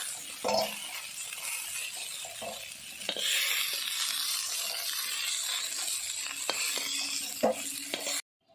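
Fish pieces frying in hot oil in an iron kadai, sizzling steadily, with a metal spatula scraping and knocking against the pan as the pieces are turned. The sound cuts off suddenly near the end.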